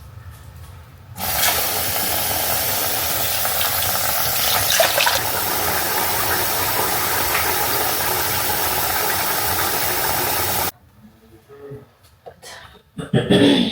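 Water running steadily from a tap, turned on about a second in and shut off suddenly near the end.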